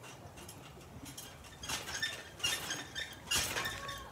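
Trampoline bounces: the springs clink and ring with each landing on the mat, about three bounces in the second half, getting into a back tuck.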